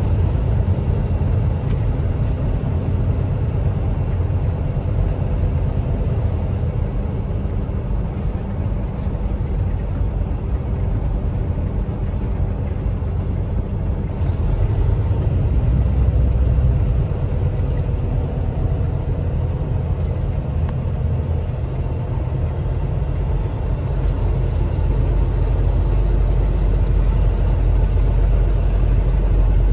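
Cab interior of an International semi truck cruising on the road: steady diesel engine drone with tyre and road rumble.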